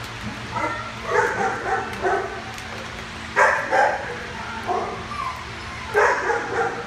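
Dogs barking and yipping in repeated short bursts, bunched every second or two, over a steady low hum.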